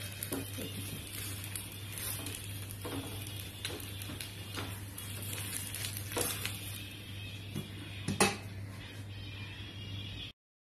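Metal spatula scraping and knocking on a tawa as a neer dosa is worked loose and lifted, about a dozen scattered knocks with the loudest near the end, over a light sizzle and a steady low hum. The sound cuts off abruptly just before the end.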